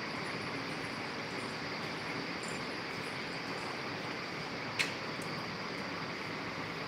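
Steady background hiss of room noise while the group sits still holding the breath, with a single sharp click about five seconds in.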